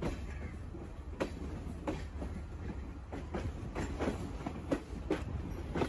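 Passenger train's steel wheels clacking irregularly over rail joints, heard from an open carriage door over a steady low rumble of the moving train.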